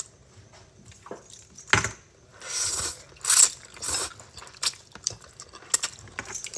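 Spaghetti being slurped and eaten off chopsticks, with light clicks of chopsticks against each other and the bowl. Several loud slurps come between about two and four seconds in.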